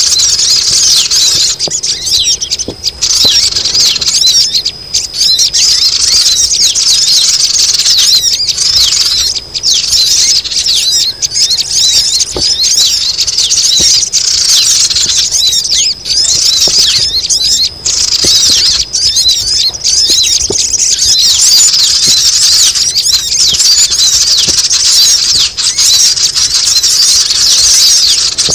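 A noisy chorus of sogon birds played as a lure call: many high, short chirps and squeaks overlapping without a break.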